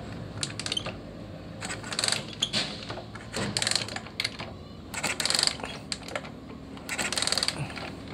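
Ignition spark snapping from the coil lead to the engine of a Suzuki Smash 110 in several short bursts of rapid clicks, about every one and a half seconds, as the engine is turned over. The coil is firing, so the rewired ignition circuit is connected correctly.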